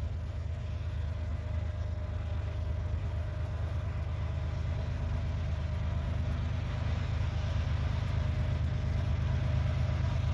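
Diesel freight locomotives working hard under heavy load up a grade, in notch 7 or 8: a steady deep engine rumble that slowly grows louder as they approach.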